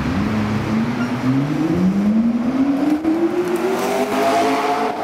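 McLaren P1's twin-turbo V8 accelerating, its engine pitch climbing steadily over several seconds as the car passes close by near the end.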